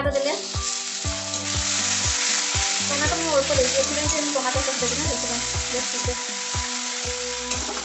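Chopped tomatoes hitting the hot oil of frying onions and peppers in an iron kadai, setting off a sudden loud sizzle that carries on steadily while a metal spatula stirs the pan.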